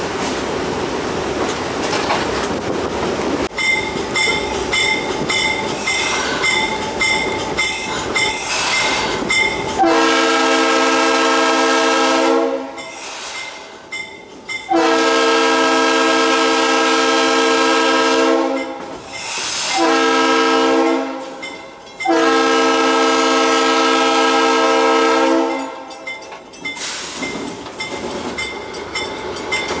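GE B23-7 diesel locomotive under way, with engine and wheel-on-rail noise. A few seconds in, its bell starts ringing about twice a second. Then its air horn sounds the grade-crossing signal, long, long, short, long, while the bell keeps ringing.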